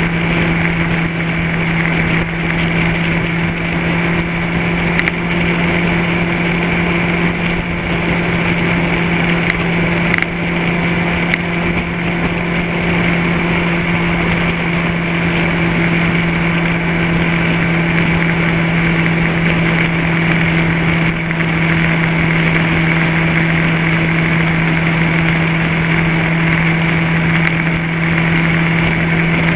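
Vehicle engine running at a constant speed: a steady drone that holds one unchanging pitch, with a steady higher whine above it.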